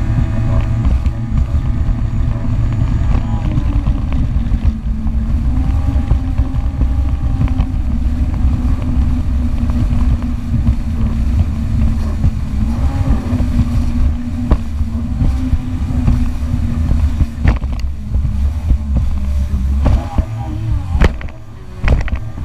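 Yamaha FX HO personal watercraft's four-stroke engine running at speed, holding a steady note with slight wavers over the rush of water and wind, after its fuel pump rebuild. About twenty seconds in the throttle eases, the engine note drops and the sound thins, with a few sharp knocks near the end.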